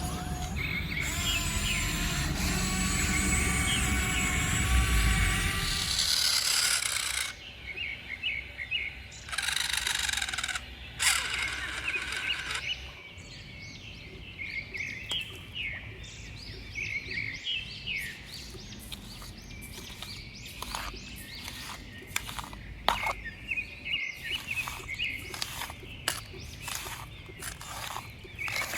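Birds chirping, with a small motor whining steadily for the first six or seven seconds before it stops, and scattered sharp clicks after that.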